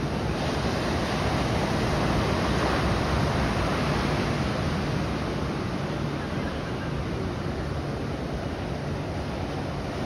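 Ocean surf breaking and washing up the beach, a steady rush that swells a few seconds in and then slowly eases.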